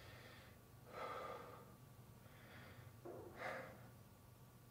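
Two soft breaths, about two seconds apart, over near silence with a faint low hum of room tone.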